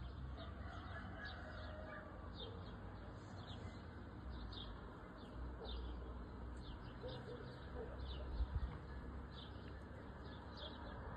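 Small birds chirping outdoors, short falling chirps about once a second, over a low steady rumble of outdoor background noise. There is a soft low thump about eight seconds in.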